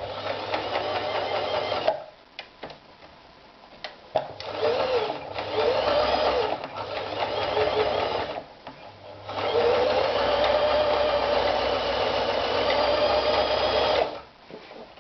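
Toyota EX 390 sewing machine stitching in three runs, stopping twice in between. During the middle run its speed dips and picks up again, and there are small ticks during the pauses.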